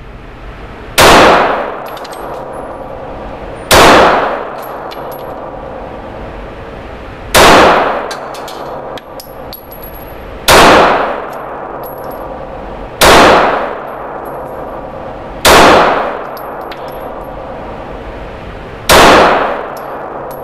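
Glock G19 9mm pistol fired seven times in slow, aimed single shots, about three seconds apart, each shot ringing on in the echo of an indoor range. A steady background noise continues between the shots.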